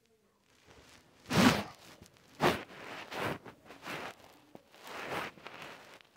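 About five soft rustling swishes, roughly one a second, the first two loudest, from small plastic dollhouse furniture being handled and moved across a fabric bedsheet.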